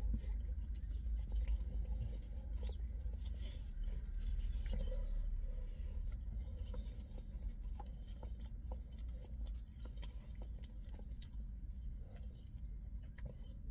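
A person chewing and a wooden fork scraping and tapping in a paper food box: scattered small clicks and rustles over a steady low rumble.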